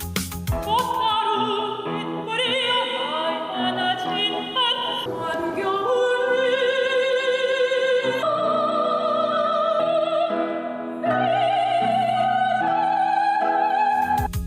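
Operatic singing: a classically trained voice holding long notes with a wide vibrato, stepping up in pitch near the end, over a soft accompaniment.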